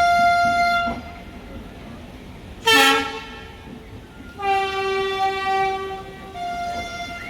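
Locomotive horns sounding a series of separate blasts at different pitches: a high blast that stops about a second in, a short sharp blast near three seconds that drops in pitch, a longer lower blast from about four and a half to six seconds, and a high blast again near the end. The honking acknowledges a departing express train.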